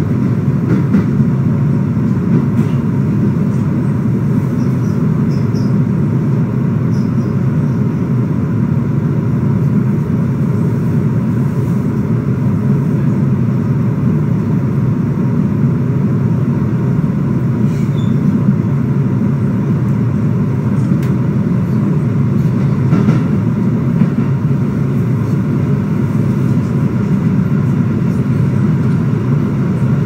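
Steady, even rumble of a moving vehicle, heard from inside it.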